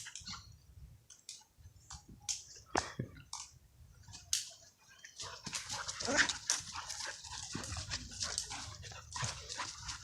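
Two dogs playing, with short dog vocalisations among scattered sharp clicks and scuffling. The activity gets busier and louder from about halfway through.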